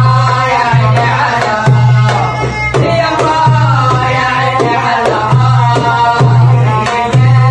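Egyptian folk epic singing: a male voice sings a drawn-out, wavering melodic line over a hand drum keeping a steady beat, with deep strokes about once a second and lighter taps between them.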